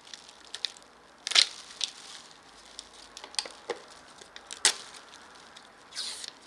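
Clear adhesive film dressing being peeled from its paper backing and pressed on: scattered crinkling and crackling of paper and film, with two louder snaps about a second in and near five seconds.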